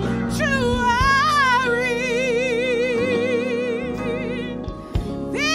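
A solo singer performing a slow gospel worship song, holding one long note with wide vibrato over sustained instrumental accompaniment, then starting a new phrase near the end.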